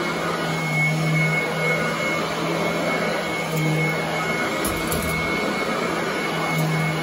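Royal commercial upright vacuum running steadily over carpet, with a constant high whine and a low hum that swells and fades every second or two. A low knock sounds about five seconds in.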